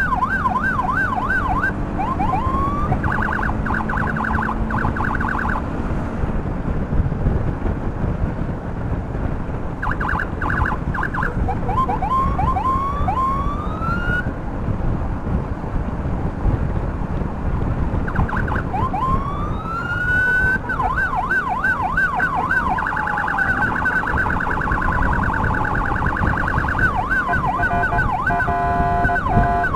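Electronic emergency siren switching between patterns: a fast yelp, short rapid stuttering pulses, rising whoops that climb and break off, and a two-tone alternation near the end. Under it runs steady wind and road noise from a moving motorcycle.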